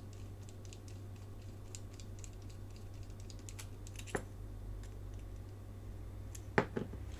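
Small scattered clicks and taps of hand tools and tiny screws being handled on a workbench, with sharper clicks about four seconds in and again near the end, over a steady low hum.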